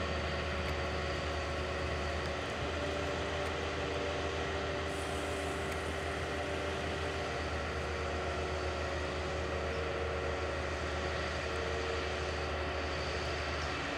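Self-propelled grape harvester's engine running steadily while it raises and tips its grape hoppers, with faint tones that come and go over the hum.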